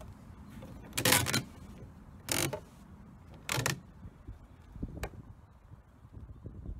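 A steel hook bar for paintless dent removal scraping and grating inside a car door as it is slid into place behind the panel: three short scrapes about a second apart, then a single click.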